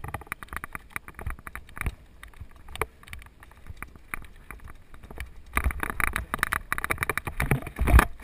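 Scattered clicks and knocks as a mountain bike is handled and picked up off a gravel trail. About five and a half seconds in, a dense, loud rattle starts as the bike rolls down the rough gravel, with a heavy knock near the end.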